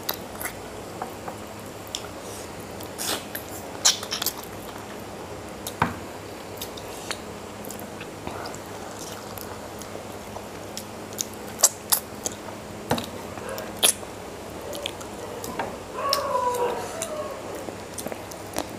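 Close-miked eating by hand: chewing of mutton curry and pulao, with wet mouth smacks and sharp lip clicks scattered throughout. A brief wavering vocal sound near the end.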